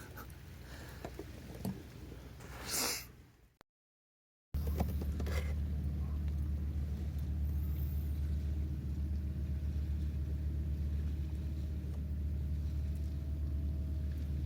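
A steady low mechanical drone, like an engine running, that starts after a brief dropout to silence about four seconds in; before it, faint handling noises and a short rushing sound.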